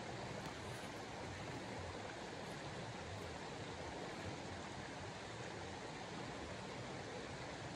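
Steady outdoor background hiss, even throughout with no distinct sounds standing out.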